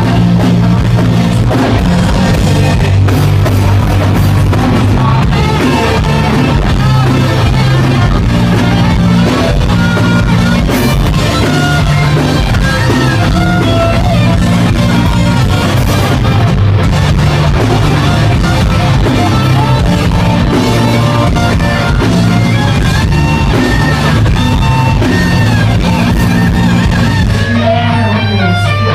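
Live rock band playing loud, with electric guitars, bass and drum kit. Near the end the cymbals drop out and a low note is held.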